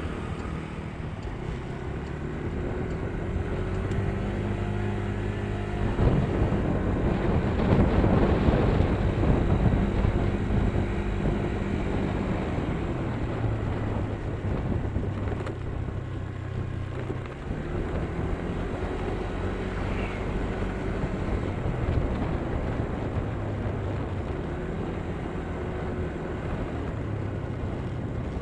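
Vehicle engine running on the move, its pitch stepping up and down with speed and gear changes, under road and wind noise that grows louder about six to ten seconds in.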